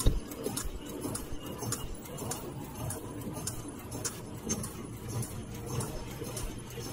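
Servo-driven blank 3-ply flat face mask machine running at production speed: a steady low hum under rapid, irregular clicking and ticking from its moving parts.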